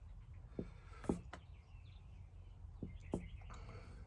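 Faint workshop-type clicks and taps, about six, spaced irregularly over a low steady hum, with faint bird chirps in the background.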